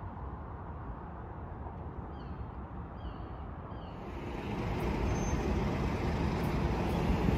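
Steady low rumble of road traffic, louder from about four seconds in, with a few faint short high chirps before that.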